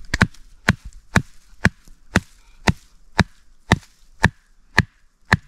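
A blade chopping into wood in a steady rhythm, about two strikes a second, a dozen strikes in all.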